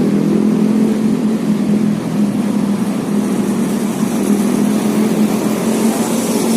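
An engine running steadily at a constant pitch, giving an even drone with no changes in speed.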